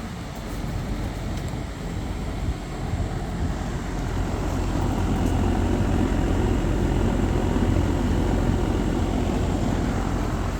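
Goodman heat pump package unit starting up and running: a steady hum of compressor and condenser fan that builds over the first few seconds and holds steady from about four seconds in. It has started on the first try.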